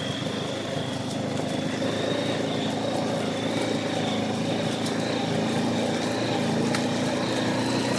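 ATV engine running steadily while riding, with a thin high whine held above the engine drone.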